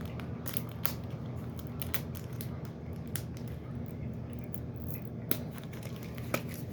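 Toy packaging being handled and opened: scattered sharp clicks, snips and crinkles at irregular intervals over a steady low hum.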